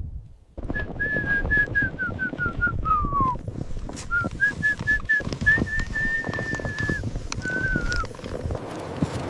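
Someone whistling a simple tune: a run of short notes stepping down into a falling glide, then after a pause notes rising to a long held note and a short falling one. Steady rustling and knocking lies underneath.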